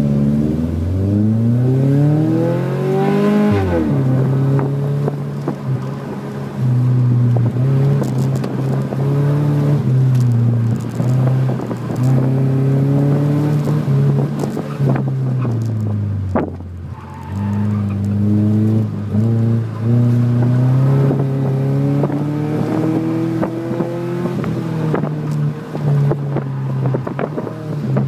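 2001 Subaru Impreza 2.5RS's 2.5-litre flat-four engine, heard from inside the cabin, working hard through an autocross course. Its pitch climbs steadily, falls away about three and a half seconds in, then rises and falls over and over as the driver comes on and off the throttle.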